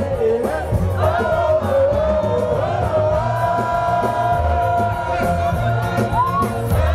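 Live Afropop performance through a stage PA: a male singer's voice over a heavy bass beat, with held notes in the middle and a rising vocal slide near the end, and crowd noise underneath.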